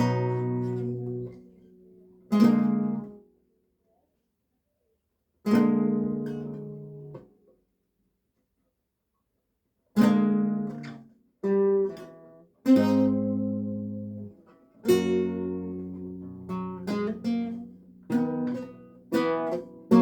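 Renaissance lute being practised: single plucked chords that ring and die away, broken by two pauses of a couple of seconds, then a busier run of quicker notes and chords in the second half.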